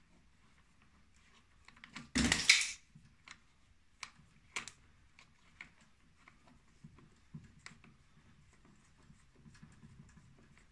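Scattered small clicks and light scraping of a threaded track-tension gauge being screwed in by hand through a snowmobile track, with one louder half-second scrape about two seconds in.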